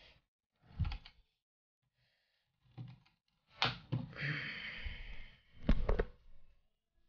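Metal tripod being handled and its legs spread open on a hard floor: a few dull knocks and sharp clicks from the legs and leg brace, with a short scraping rustle between them. The loudest are two knocks near the end.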